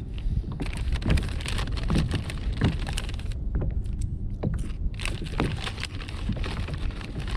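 Wind rumbling on the microphone, with irregular small splashes and knocks of water against a kayak.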